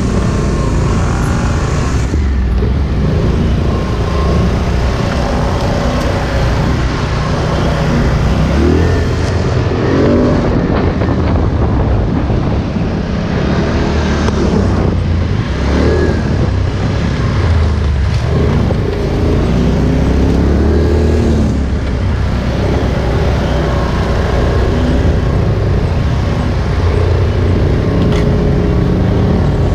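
Polaris Sportsman 1000 ATV engine running under way, its pitch rising and falling several times as the throttle opens and closes.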